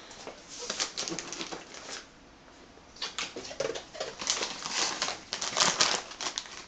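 Crinkling and rustling of a plastic bag of dry dog food being handled, in two spells of irregular crackles and clicks with a short quiet pause between.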